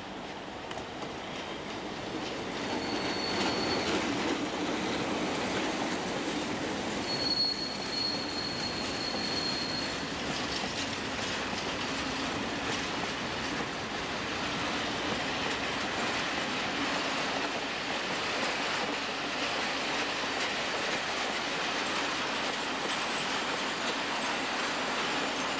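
RENFE 321-series diesel locomotive hauling a grain train of hopper wagons past at close range. The noise builds over the first few seconds as it approaches, then settles into the steady rumble of the wagons rolling by. A brief high-pitched wheel squeal comes about three seconds in, and a longer one from about seven to ten seconds in.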